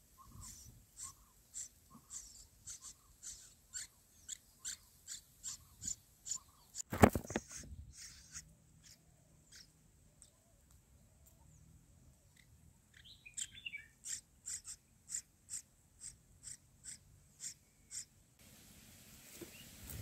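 Red-whiskered bulbul nestlings begging at the nest: thin, high cheeps repeated about twice a second, with a pause of a few seconds midway. A louder rustling burst comes about seven seconds in.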